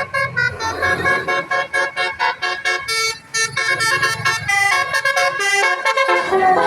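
Basuri telolet horn, the Indonesian multi-tone bus horn, playing a fast tune of short stepped notes that change several times a second. It starts abruptly.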